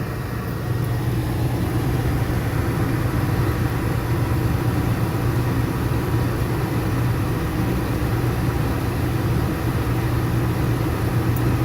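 Forced-air furnace running with its cover off: a steady low hum, a little louder from about a second in.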